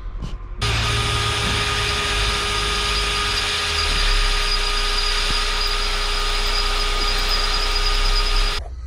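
Angle grinder cutting through a seized, drilled-out exhaust flange bolt. It starts about half a second in, runs steadily with a high whine over a grinding hiss, and stops abruptly near the end.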